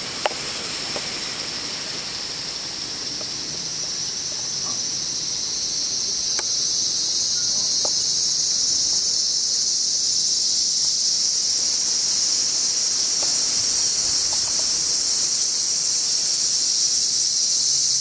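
Cicadas buzzing: a steady high-pitched drone that grows louder over the first several seconds, then holds. A single sharp click just after the start.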